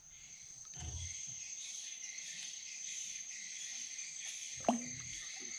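A steady, high-pitched chorus of insects that swells in over the first second. About four and a half seconds in there is one short, sharp sound that drops quickly in pitch, louder than the chorus.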